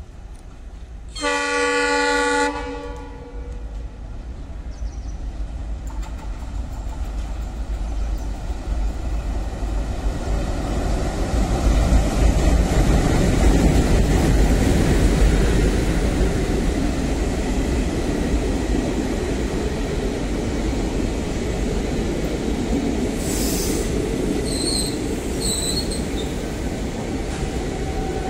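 Indian diesel locomotive sounding one horn blast about a second in, then running past hauling ICF passenger coaches: a steady rumble that grows to its loudest around the middle as the engine goes by, with the coaches rolling behind. A few short, high-pitched metallic squeals come near the end as the train slows into the station.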